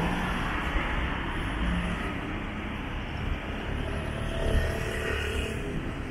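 Steady city street noise: a low, even rumble of vehicle traffic.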